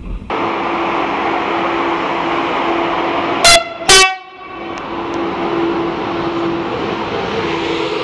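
Electric freight locomotive sounding two short, loud horn blasts about half a second apart, midway through, over the steady rumble and hum of the train running past.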